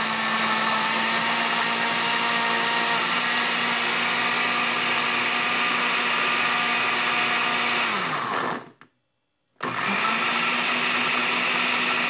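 Electric countertop blender running at full speed, grinding garlic cloves and fresh herbs in a little water and vinegar into a seasoning paste. The motor winds down about eight seconds in, then starts up again just before ten seconds.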